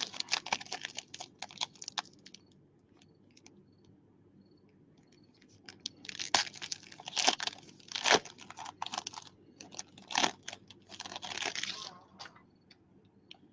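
Plastic wrapping being torn and crinkled while a box of football trading cards is opened: two spells of ripping and crackling, the second longer, with a quiet gap of a few seconds between.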